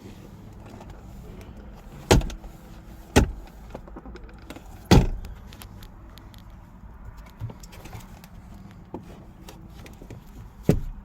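Four sharp knocks or clunks, spaced irregularly, over a low steady rumble.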